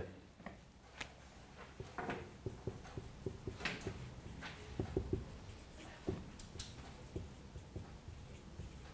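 Dry-erase marker writing on a whiteboard: a run of faint, short, irregular strokes.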